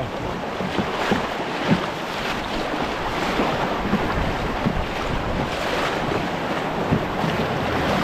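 River whitewater rushing and splashing steadily around a canoe running a rapid, with a few soft knocks of water against the hull.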